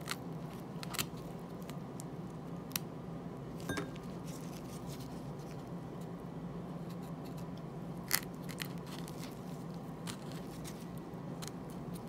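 Serrated knife slicing into the skin of a ripe prickly pear, giving a few short sharp clicks and small scrapes, the loudest about eight seconds in, over a faint steady hum.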